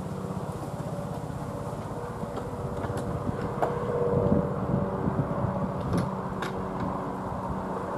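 Robinson R66 helicopter flying overhead: the steady whine of its Rolls-Royce RR300 turboshaft engine over the fast beat of the rotor blades, getting a little louder midway as it passes closest. A few sharp ticks are heard over it.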